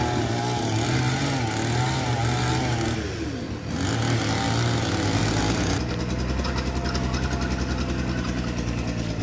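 Mitsubishi BD2F bulldozer's diesel engine running, dipping briefly a few seconds in, then settling into an even, fast pulsing beat like an idle for the last few seconds.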